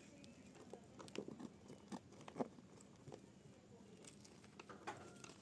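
Dry mud being crushed and crumbled, a faint irregular crunching and crackling with a few sharper snaps.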